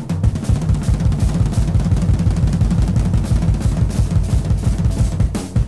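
Rock music: a long, fast drum roll across the kit, with the band coming back in on a steady beat near the end.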